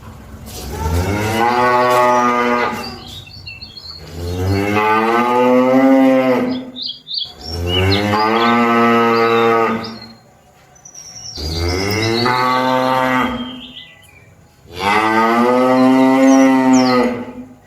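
Cattle mooing: five long moos one after another, each rising in pitch at the start and then held for a couple of seconds, with short pauses between them.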